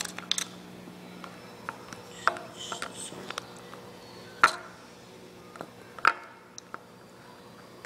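Plastic food containers and lids being handled: a few sharp clicks and knocks about two seconds apart, with smaller ticks between, over a steady low hum.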